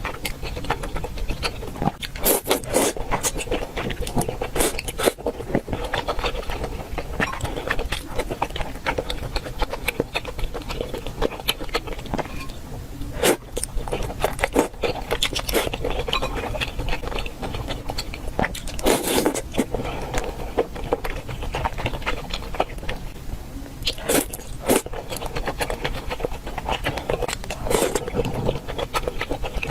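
Close-miked eating: a person biting and chewing food, with irregular sharp crunchy bites among wetter chewing and mouth noises.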